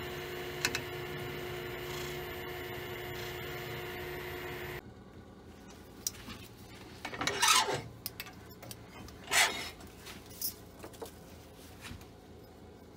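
A wood lathe's motor hums steadily, with one faint click, then cuts off abruptly about five seconds in. After that come irregular rubbing and scraping sounds of hand tools being handled, two of them louder, about two seconds apart.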